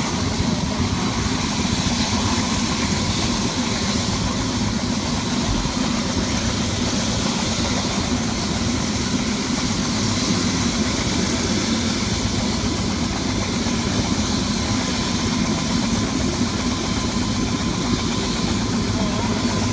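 Medical helicopter's turbine engine and main rotor running steadily on the ground ahead of lift-off, with a thin, high, steady turbine whine over the rotor noise.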